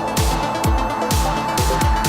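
Electronic dance music with a steady kick-drum beat, about two beats a second, under a held synth tone.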